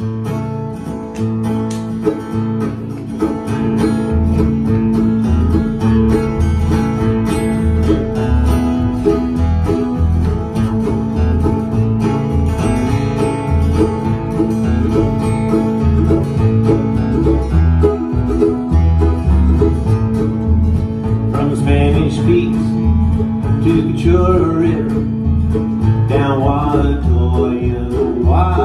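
Acoustic string band of mandolin, two acoustic guitars and upright bass playing a country tune, the bass plucking a steady pulse of low notes under the strummed guitars.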